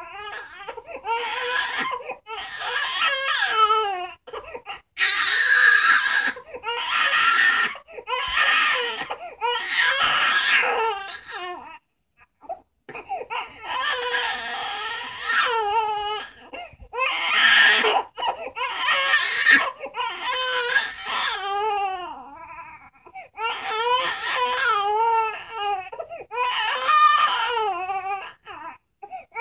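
Young infant crying: repeated wails about a second long, each with a wavering pitch, broken by short breaths and a brief pause about twelve seconds in.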